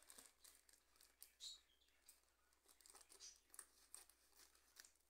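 Faint crinkling and rustling of a plastic flour bag being snipped open with scissors, in scattered small crackles.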